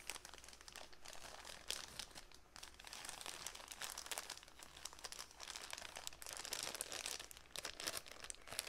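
Clear plastic zip-top bag crinkling and rustling as it is handled, a soft, irregular run of crackles.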